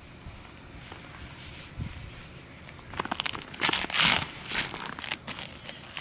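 Crunching in packed snow, like footsteps, quiet at first and then louder, with the loudest crunch about four seconds in.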